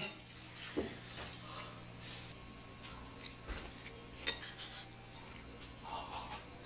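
Faint, scattered clinks of tableware, utensils tapping against bowls and dishes at a meal, over a low steady room hum.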